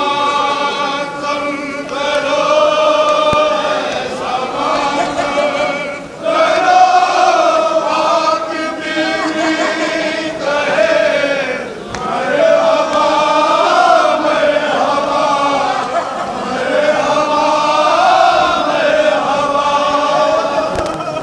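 A crowd of men chanting a mourning lament together, a lead voice carried by many others in long, drawn-out sung phrases.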